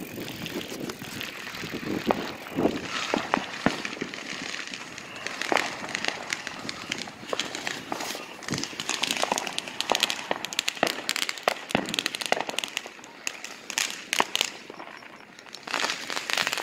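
Fireworks and firecrackers going off: a steady run of sharp cracks and pops, thickest from about halfway through.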